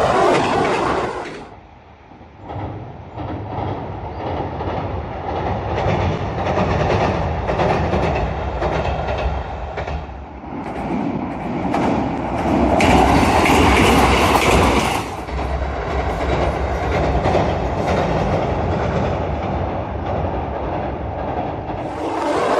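A train running past, a steady rumble that builds up and is loudest for a couple of seconds about halfway through.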